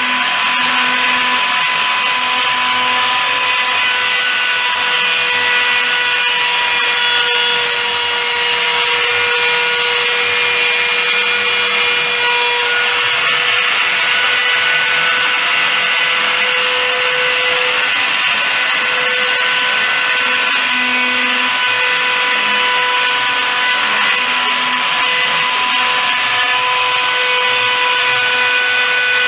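A machine's motor running continuously with a steady whine, several tones stepping in and out every few seconds over a dense noise.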